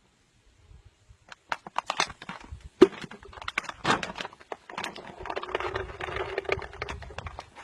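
Irregular clicks and knocks, like handling or tapping noise, starting about a second in, with a faint steady hum under them in the latter half.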